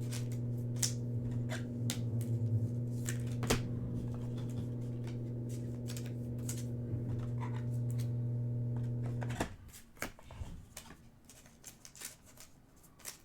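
Trading cards being flipped and handled, giving a run of sharp clicks and snaps, over a steady low hum that cuts off suddenly about nine seconds in.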